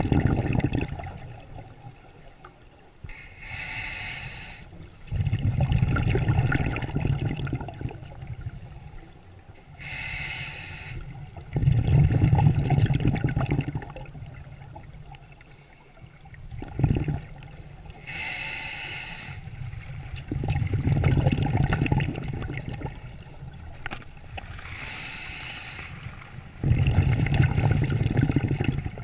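Scuba diver breathing through a regulator underwater: a short hissing inhale through the demand valve, then a longer, louder bubbling exhale, repeating about every seven seconds, four breaths in all.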